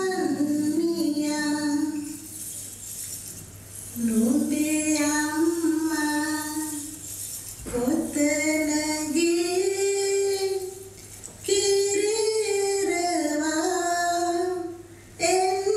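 A woman singing solo, holding long, slow notes that bend gently in pitch, in several phrases separated by short pauses.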